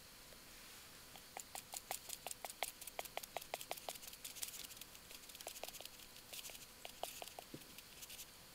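Hand salt grinder being twisted over a mess tin, giving quick runs of small ratcheting clicks, a few a second, from about a second in until near the end.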